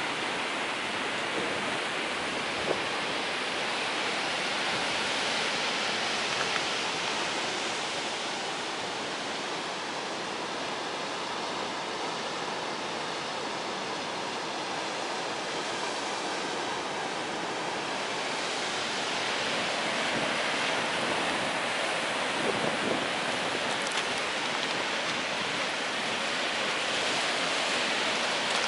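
Ocean surf and wind on the shore: a steady rushing noise that eases a little in the middle and swells again later.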